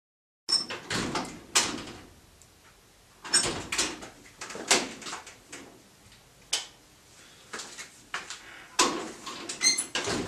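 A door being handled: irregular knocks and clunks as it is opened and shut, with a short squeak near the end.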